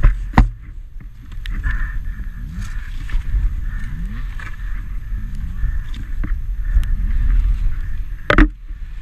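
A fallen enduro dirt bike being wrestled on a muddy slope: rumbling handling noise with a sharp knock just after the start and another near the end.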